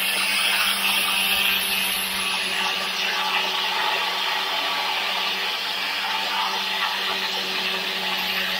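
Angle grinder with a white cloth buffing wheel running steadily, polishing a stainless steel spoon lure with buffing compound in the final polishing stage: a constant motor whine with the hiss of the wheel against the metal.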